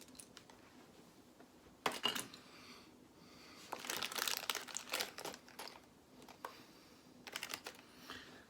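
Plastic Lego pieces being handled and pressed together: a few short clicks and crinkly rustles, one burst about two seconds in and a busier cluster around the middle.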